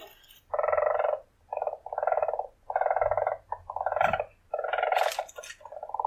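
Weasel purring in a string of short, rapidly pulsed bouts, each about half a second to a second long with brief gaps between.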